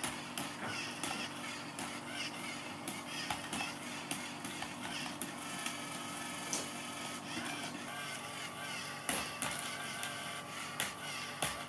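Motorised cat teaser toy running with a steady hum, over scattered light clicks and taps as cats bat at its swinging wand. A second steady tone joins the hum about eight seconds in.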